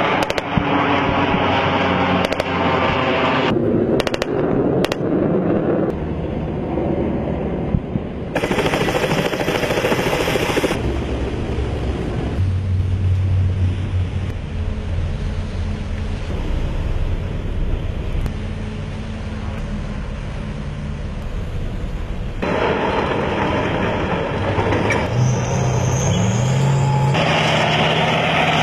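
Military field sound in short clips that cut abruptly from one to the next: gunfire and the running of boat and armoured-vehicle engines, with a steady low engine hum through the middle stretch.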